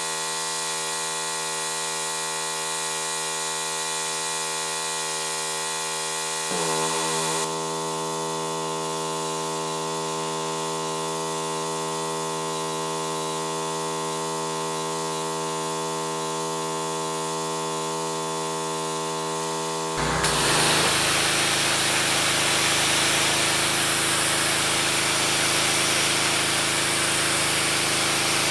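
Pressure washer running with a steady hum; its pitch shifts briefly about six and a half seconds in. About two-thirds of the way through, the spray comes on, and a louder, even hiss of water jetting onto the deck takes over.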